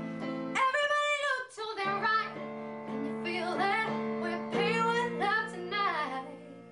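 Background song: a high female voice singing over guitar accompaniment, fading down near the end.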